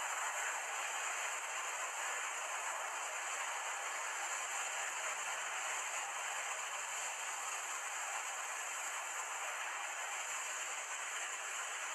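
A steady, even hiss with no separate knocks or splashes and no change in loudness.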